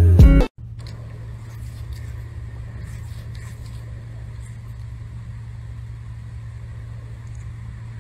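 A cat purring close up: a steady low rumble. It follows music that cuts off about half a second in.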